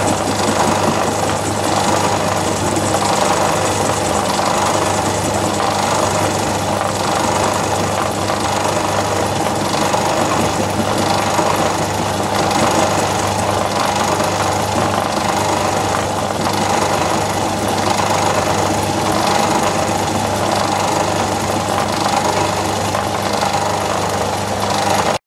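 Myford lathe running at 300 RPM with an end mill in the spindle milling a Dixon quick-change tool holder: a steady motor and belt-drive hum with the cutter chattering lightly against the metal, ending abruptly.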